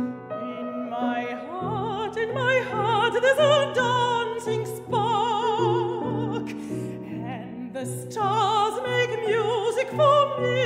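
Mezzo-soprano singing a classical art song in operatic style with a wide vibrato, the melody climbing and falling, over a piano accompaniment that repeats low notes about twice a second.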